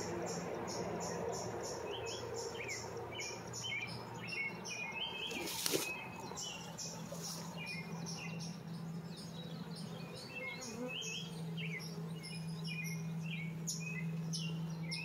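Honeybees buzzing around the hive entrance, a steady low hum, with birds chirping and calling throughout. One sharp click near the middle.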